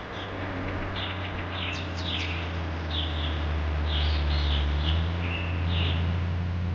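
Small birds chirping in a series of short, quick calls, over a steady low hum and an even background hiss.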